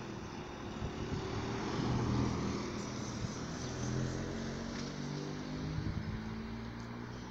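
A motor vehicle driving past, its noise swelling to a peak about two seconds in, with its engine note then slowly falling as it moves away.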